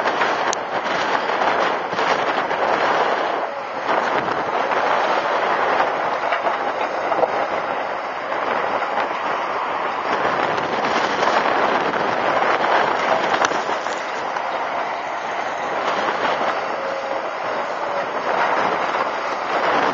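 CAT M315C wheeled excavator at work: its bucket scrapes and scoops through stony soil with a steady, dense rattle of gravel and many small clicks and clanks over the running machine.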